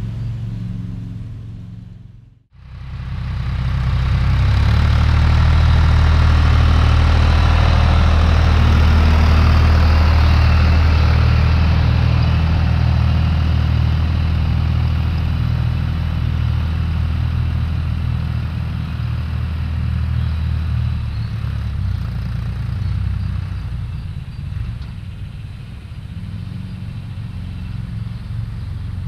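Tractor diesel engine running steadily with a low, even note while pulling a plough. The sound drops out briefly about two seconds in, then returns louder.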